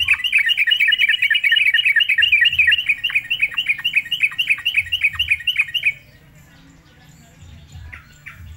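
Caged yellow-vented bulbul (trucukan) singing loudly: a fast, rapid-fire run of repeated sharp chattering notes, about seven or eight a second, that stops abruptly about six seconds in. A couple of faint notes follow near the end.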